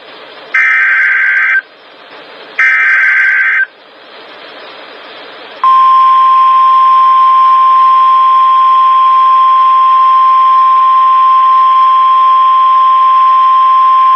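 NOAA Weather Radio Emergency Alert System activation. Two one-second bursts of the SAME digital header's data tones, with radio hiss between and after them. About six seconds in, the steady 1050 Hz warning alarm tone begins and holds for the rest. The header encodes the alert, and the tone signals that a warning, here a flood warning, is about to be read.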